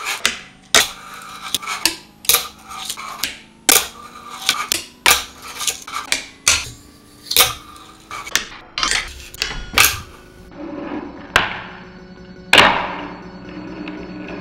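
Fingerboard clacking and rolling on a granite slab: a quick series of sharp clacks as the deck's tail, wheels and trucks strike the stone during tricks. Near the end the impacts turn fewer and duller and ring out longer, over a low steady hum.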